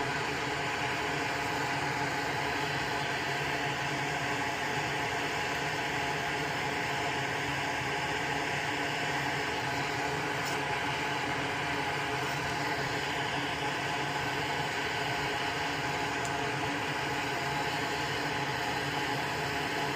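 A fan or small motor running steadily: an even hum of several fixed tones over a hiss, with no change in speed.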